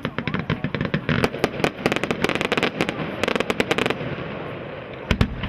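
Aerial fireworks going off: a dense volley of rapid crackling reports, thickest from about one to four seconds in, then a single deep boom near the end.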